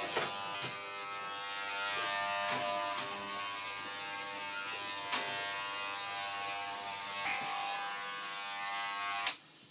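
WAHL Pet-Pro corded electric pet clipper buzzing steadily as it is run over a small dog's coat in a final pass with the grain. It switches off abruptly near the end.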